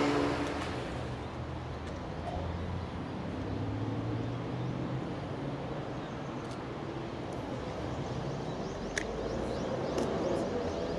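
Outdoor ambience with a steady low engine hum and a few faint sharp clicks.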